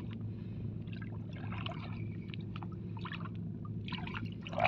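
Shallow seawater sloshing and splashing as hands reach into it, over a steady low hum, with one louder burst near the end.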